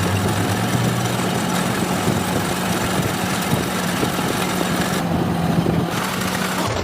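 A machine running steadily, with a constant low hum under a dense, even noise.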